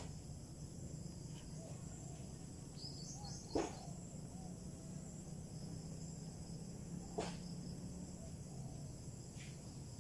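Steady high-pitched chirring of night insects such as crickets over a low hum, broken by two short sharp sounds about three and a half and seven seconds in, the first the loudest.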